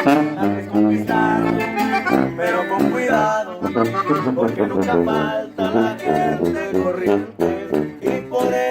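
Norteño band playing an instrumental passage, with accordion lead over strummed guitar and tuba bass in a steady rhythm.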